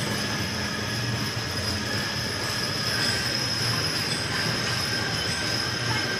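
Teams of Belgian draft horses trotting past hitched to wagons: a steady rumble of wagon wheels and hooves on the arena's dirt floor, with a continuous low hum and a high whine.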